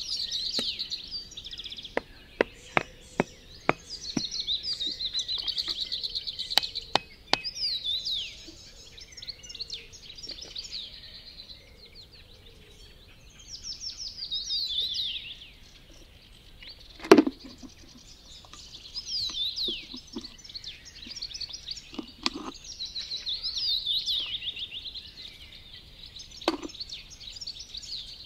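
Many small birds chirping and trilling, with scattered knocks from sticks and wood being handled: a quick run of sharp taps a few seconds in, and a loud thump a little past the middle.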